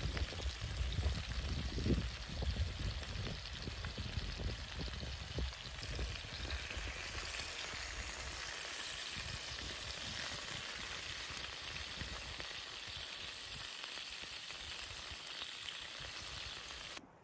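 Bacon fat sizzling in a cast-iron skillet, a steady hiss, with low knocks and thumps in the first few seconds. It cuts off near the end.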